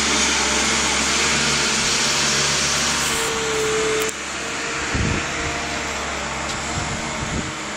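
Steady mechanical whirring noise with a faint hum, dropping in level about four seconds in, with a few low thumps later on.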